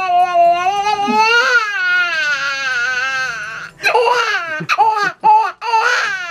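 A grown man's vocal impression of a crying baby, made through hands cupped over his mouth. One long wail that rises and falls in pitch, then from a little before four seconds in, about four short broken cries.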